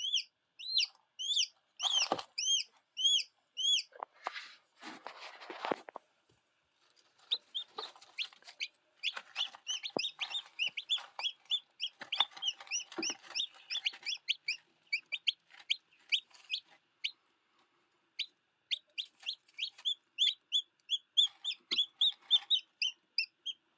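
Chicks peeping: a run of high, short, falling peeps, two or three a second, pausing now and then, with a brief rustling scuffle about four to six seconds in.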